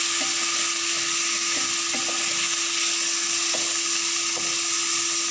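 Chicken pieces frying in hot oil and butter in a pan, giving a steady sizzle, with a few light stirring scrapes and a steady hum underneath.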